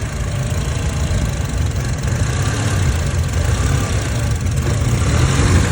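2008 Honda CR-V's four-cylinder engine idling under the open hood, with a slight, gradual rise in loudness. It is running lean on unmetered air drawn in through a torn intake duct.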